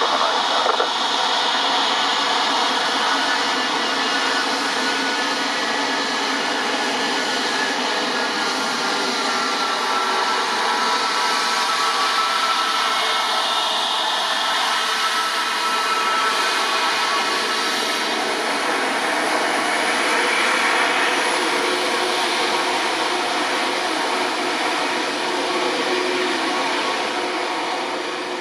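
Airbus A320neo's twin turbofan engines during the landing roll: a steady, loud jet roar with a faint whine through it, easing off near the end.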